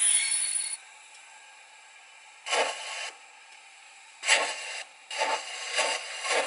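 Factory-fitted sound decoder of a Roco HO-scale DB class 038 steam locomotive model playing steam exhaust through its speaker: a brief hiss at the start, then chuffs that begin widely spaced and come faster, the power strokes of the cylinders as the model pulls away.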